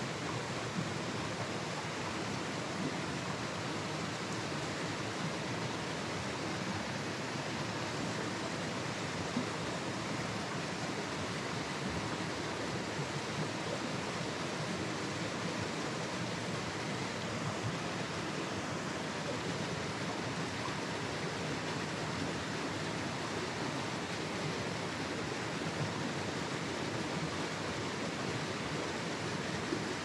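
Small mountain stream spilling over rocks in a little cascade into a pool: a steady rush of running water.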